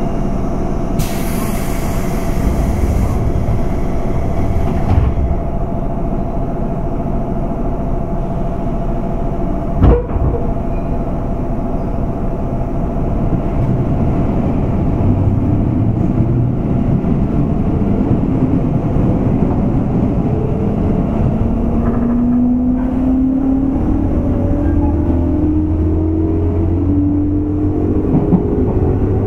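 Running sound inside a JR West 201 series electric train's motor car: steady wheel-on-rail rumble, with a short hiss in the first few seconds and a single sharp knock about ten seconds in. In the last third the traction motor whine rises steadily in pitch as the train accelerates under its chopper control.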